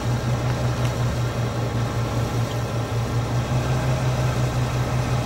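A vehicle engine idling steadily, a low hum that pulses evenly a few times a second.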